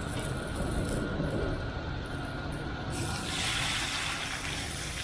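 Sliced tomatoes hitting hot oil in a small karahi over charcoal and sizzling, the hiss starting suddenly about three seconds in. A steady low rumble runs underneath.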